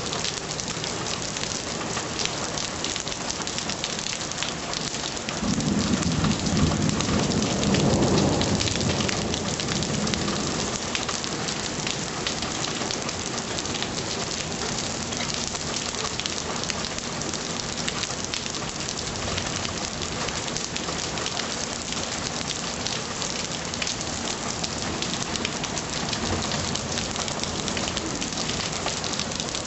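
Heavy rain pouring steadily, a dense hiss with many fine drop ticks. A low rumble of thunder swells from about five seconds in and fades by about ten seconds.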